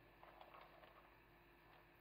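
Near silence, with a few faint soft scrapes of a silicone spatula stirring apple slices in a frying pan in the first half.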